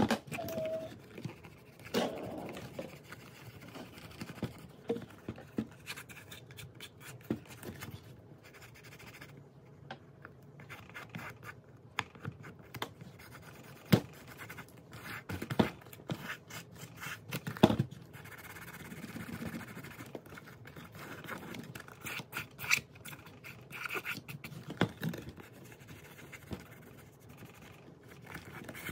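Acetone-soaked cotton ball rubbed and scrubbed over the leather of a ballet flat, deglazing it: an irregular scratching and scraping as the factory finish comes off in crumbly bits. A few sharp knocks sound in the middle.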